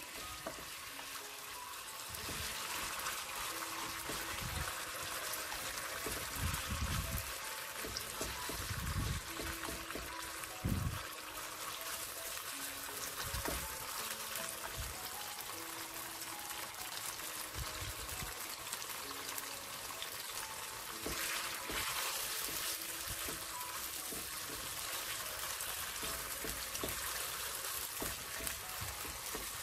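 Marinated beef slices sizzling in hot oil in a wok as chopsticks stir them apart, with a few low knocks in the first half.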